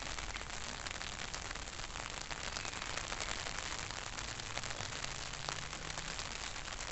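Steady rain, with many small drops tapping on the canopy of an umbrella held overhead.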